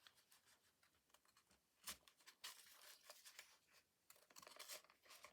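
Faint rustling and handling of paper pages, with scattered light clicks and one sharper knock about two seconds in.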